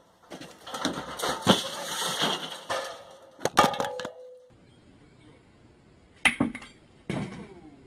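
A window pane falling and smashing: a burst of crashing and clattering breaking glass over the first three seconds, with a sharp hit about a second and a half in and another about three and a half seconds in that rings briefly. Two more sharp knocks follow near the end.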